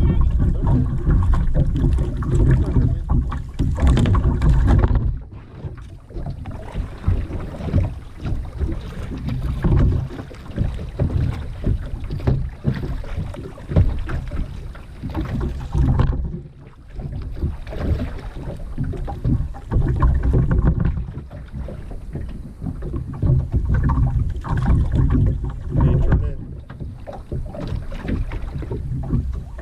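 Sounds of kayaking on open water, with wind rumbling on the microphone in uneven gusts that ease off now and then.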